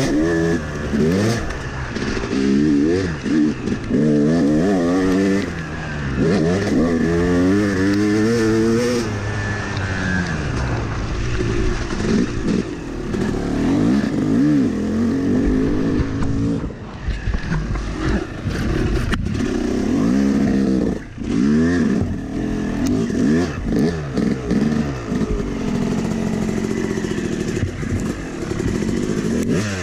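Yamaha YZ250 two-stroke dirt bike engine under hard riding. Its pitch climbs several times in the first ten seconds, then it runs at a steadier pitch with brief drops.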